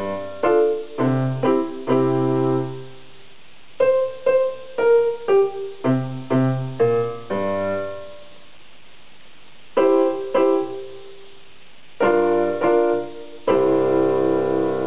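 Portable electronic keyboard on a piano voice, played in short groups of detached notes and chords with a few brief pauses between phrases. It ends on a final chord held near the end.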